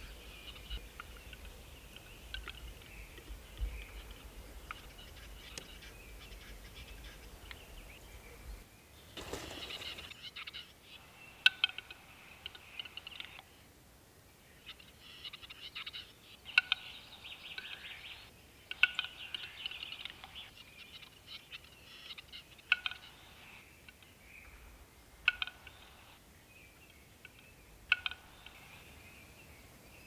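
Male western capercaillie's display song: sharp single clicks and pops every two to three seconds, most followed by a second or two of dry scraping, the whetting phrase. A short hiss comes about nine seconds in.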